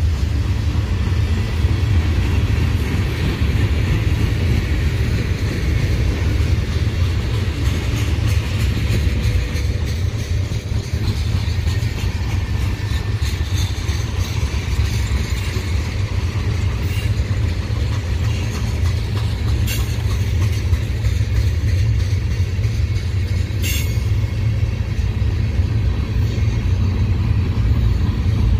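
Long Norfolk Southern manifest freight train of tank cars, hoppers and boxcars rolling past, a steady heavy rumble of steel wheels on rail. Three brief sharp high sounds cut in during the second half.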